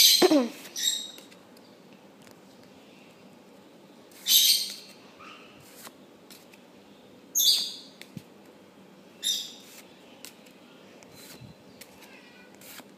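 Pokémon trading cards being moved through one at a time: short, bright swishes of card sliding against card, about five of them a few seconds apart.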